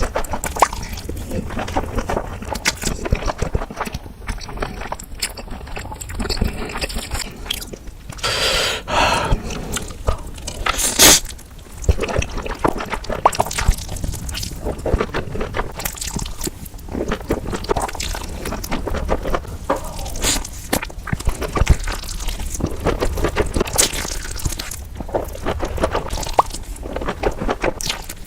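Close-up eating sounds: continuous chewing with crunching and wet, smacking mouth noises, and one sharp, louder crunch about eleven seconds in.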